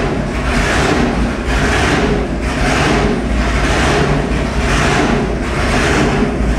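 Roots-supercharged 572 cubic-inch big-block Chevy V8 running steadily at about 1,800 rpm, its sound swelling and fading in a regular rhythm about every two-thirds of a second.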